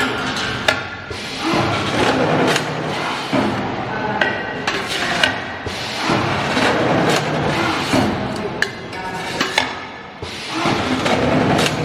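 Irregular knocks and thuds, about one every second or two, over background music; the knocks fit the cutting strokes of a CNC pipe dividing machine.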